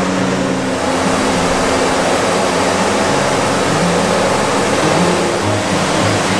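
Oil sizzling and bubbling hard in a large wok as sweet-potato dough balls are dropped in to deep-fry keria. A steady roar from the gas burner under the wok runs beneath it.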